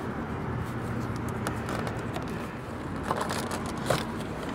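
Plastic windshield-pillar trim of a 1998 Chevy Astro van being pulled loose by hand: small scrapes and clicks of the plastic and its clips, with a few sharper snaps in the second half as the trim comes free. A steady low hum lies underneath.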